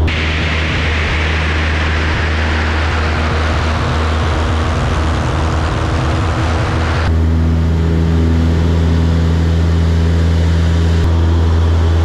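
Single-engine propeller aerobatic plane in flight: a steady low engine drone under a loud rushing airflow hiss that slides down in pitch. About seven seconds in the hiss drops away and the sound switches to a steadier engine drone with a low hum, as heard in the cockpit.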